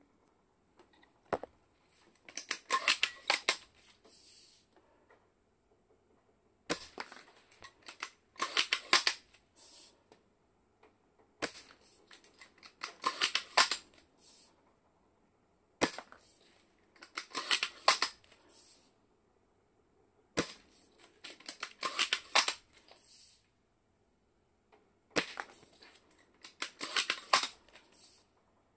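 Tokyo Marui VSR-10 spring bolt-action airsoft rifle being cycled and fired into a chronograph about six times, one round roughly every four and a half seconds: each round is a sharp shot and a burst of bolt clatter.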